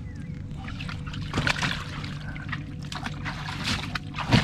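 Water splashing and trickling, with a couple of louder splashes, about a second and a half in and again near the end.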